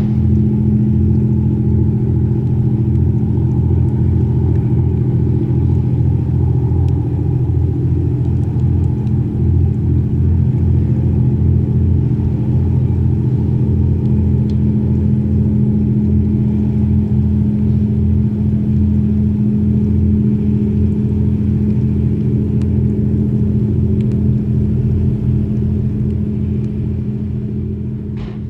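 High-speed passenger ferry's diesel engines running with a steady low drone: a deep hum over a pulsing low throb. It fades out near the end.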